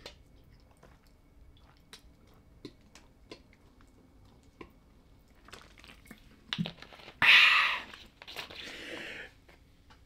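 A man drinking from a plastic bottle, with faint gulps and swallowing clicks, then a loud breath out about seven seconds in, after he lowers the bottle.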